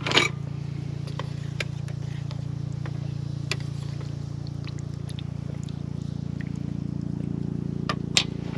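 Helicopter flying over: a steady low rotor drone with a fast, even beat, a little stronger toward the end, with a few light clicks and a clink right at the start.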